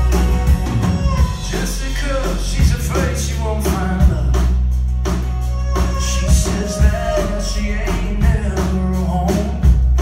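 Live folk-rock band playing: strummed acoustic guitars, upright bass and a drum kit keeping a steady beat, with a melody line sliding up and down over them.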